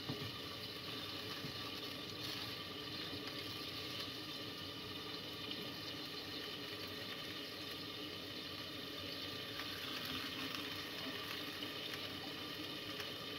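Steady hiss and bubbling of cooking liquid simmering in pans on a gas hob, as pieces of mullet are lifted out of the pan with a spatula.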